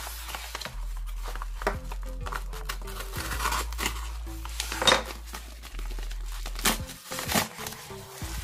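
Packaging crinkling and tearing as a parcel is opened by hand, in irregular spells with the loudest rip about five seconds in, over background music.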